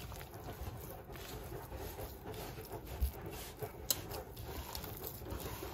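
Hands mixing and kneading a semolina-and-flour dough with water in a bowl: soft, irregular squishing and patting, with two sharper knocks a little past the middle.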